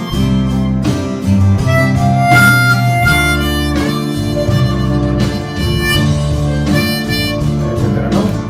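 Diatonic harmonica in C playing a simple melody, note by note, over an acoustic guitar backing track.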